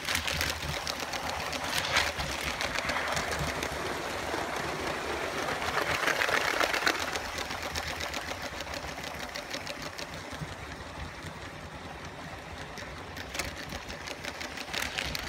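LEGO train with a Power Functions motor running on plastic LEGO track: a steady whirr of the motor and gearing under a rapid rattle of wheels clicking over the rail joints. It is loudest around six to seven seconds in, then eases off.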